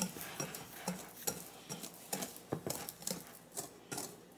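Wire balloon whisk mixing dry flour in a glass mixing bowl, its wires clicking against the glass about two to three times a second as it stirs.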